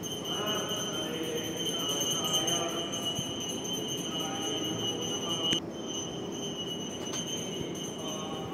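Reverberant hall ambience: faint voices in the background under a steady high-pitched whine, which cuts out briefly about five and a half seconds in.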